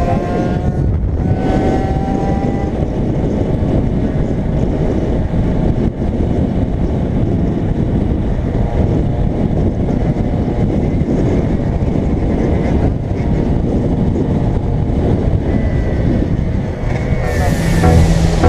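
Wind buffeting a helmet-mounted camera at road speed over the running of motorbike engines, with engine whine shifting in pitch in the first few seconds. Electronic music with a heavy beat comes in about a second before the end.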